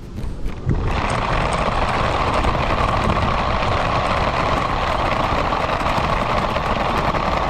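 Radio-controlled car driving, heard from a camera mounted on the car itself: its motor and drivetrain running with tyre noise. Quieter for about the first second, then the sound jumps up and holds steady.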